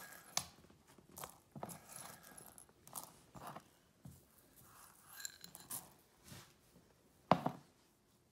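Dried beans clattering and rattling against ceramic bowls as they are scooped by hand and poured into a cloth bag: irregular clicks and rattles, with one louder clack about seven seconds in.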